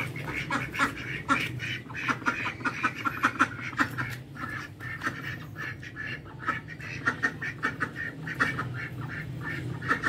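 Domestic ducks quacking, a quick series of short quacks several times a second.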